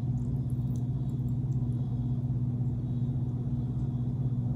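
A steady low hum that holds one even pitch throughout.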